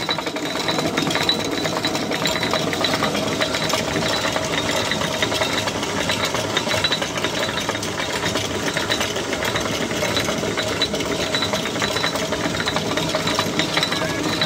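Stone mill grinding maize kernels: the spinning runner stone and its feed chute make a steady, rapid clatter with a constant hum running through it.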